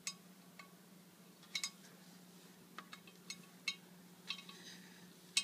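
Faint, irregular light clinks, about eight in all, like small hard metal or glass pieces tapping together, over a faint steady hum.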